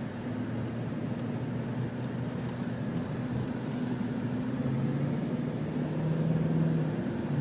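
Car engine and road noise heard from inside the cabin while driving: a steady low drone, a second low tone joining about halfway through.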